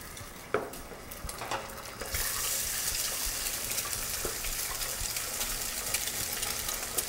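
Egg frying in hot oil in a pan, sizzling, with a light click about half a second in. The sizzle grows louder about two seconds in as the egg is stirred and scrambled with a wooden spatula.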